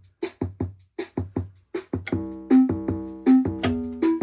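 Casiotone 401 built-in rhythm section playing a drum-machine beat, about four hits a second. About halfway in, the keyboard's auto-chord accompaniment joins it with sustained chords and a bass line.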